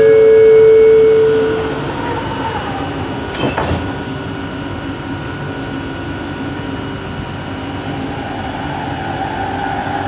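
Bombardier Innovia ART 200 metro train running, heard from inside the car. Loud steady motor tones cut off about two seconds in, then a falling whine, a brief clatter about three and a half seconds in, and a whine that grows stronger near the end over the running noise.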